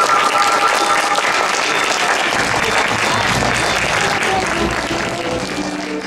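Audience applauding over music; the music's tones fade down about a second in and the applause carries on, easing toward the end.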